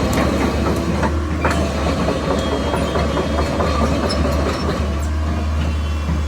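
Case CX160 hydraulic excavator running: a steady low diesel hum under continuous metallic rattling and clanking.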